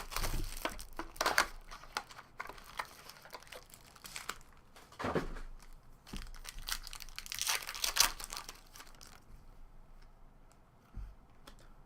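Trading card pack wrappers being torn open and crinkled by hand in a run of irregular crackling rustles, loudest about two thirds of the way through and easing off near the end.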